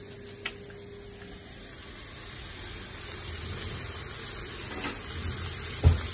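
Cubes of parboiled potato and chorizo sizzling in a hot oiled frying pan, growing louder as the pan is moved to mix them. There is one sharp thump near the end.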